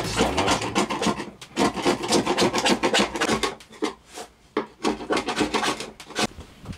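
Hand scraper blade scraping dried residue off a hard white surface in quick, irregular back-and-forth strokes, with a couple of brief pauses.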